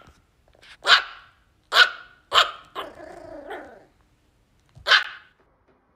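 A tiny maltipoo puppy yapping: four short, high-pitched yips with a lower, drawn-out growl between the third and fourth. It is barking because it is stuck on the couch and cannot get down.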